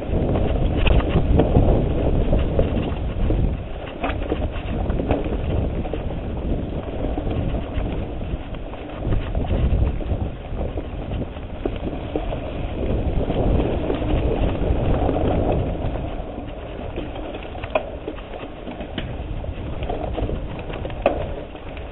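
Mountain bike riding fast down a dirt singletrack: a steady rumble of tyres over dirt and dry leaves, with scattered rattles and knocks from the bike over bumps and wind on a handlebar-mounted microphone.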